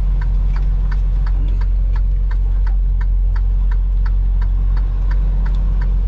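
Semi truck's turn-signal flasher ticking about three times a second, over the steady low drone of the diesel engine and road noise inside the cab.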